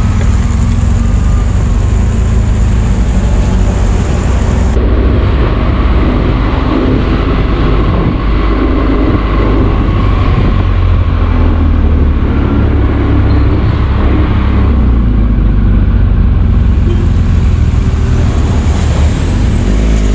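BMW R1200 GS Adventure's boxer-twin engine running steadily as the motorcycle is ridden, a constant low rumble under wind and road noise on the bike-mounted camera.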